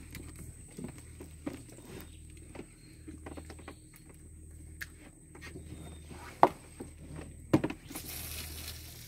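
Scattered light knocks and clicks in a small fishing boat over a faint steady low hum, with two sharper knocks about six and a half and seven and a half seconds in.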